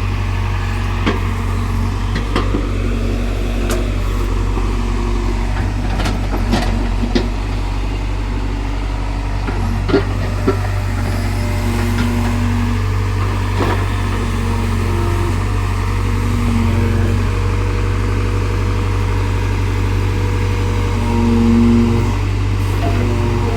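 Excavator's diesel engine running steadily while it digs soil, with scattered sharp knocks and clanks, most of them in the first half.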